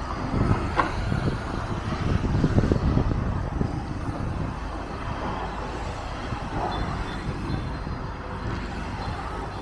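Low outdoor street rumble of road traffic, swelling over the first few seconds and then steadier.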